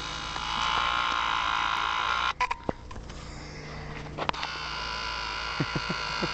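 A steady buzzing drone with a whine in it, which drops out briefly a little over two seconds in and then resumes.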